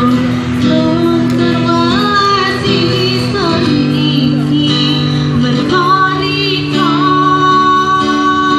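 A woman singing a melodic pop song through a microphone and loudspeaker, accompanied by a strummed acoustic guitar; she holds a long note near the end.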